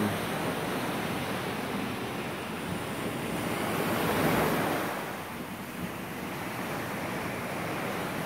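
Ocean surf washing onto a rocky shoreline, a steady rush with one wave swelling louder about four seconds in.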